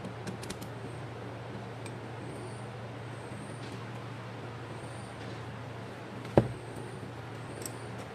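A few light clicks of the rectifier and regulator assembly being handled on an automotive alternator, then one sharp knock about six seconds in as the alternator is set down on the workbench, over a steady low hum.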